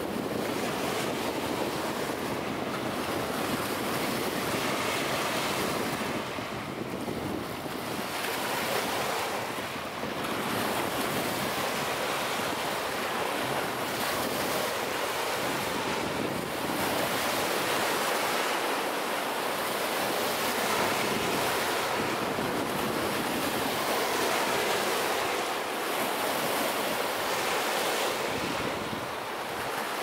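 Small Lake Michigan waves breaking and washing up a sandy beach: a continuous surf rush that eases and builds again irregularly every few seconds.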